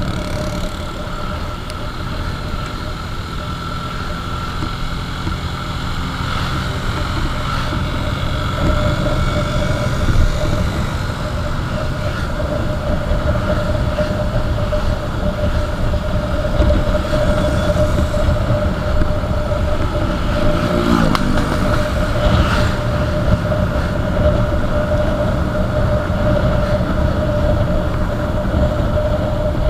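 Motorcycle on the move: wind rushing over the microphone with the steady drone of the engine and tyres, holding one even tone.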